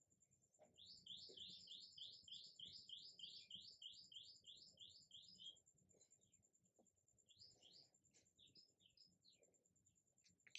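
Faint bird song: a steady series of about a dozen quick, high repeated notes lasting several seconds, followed by scattered chirps.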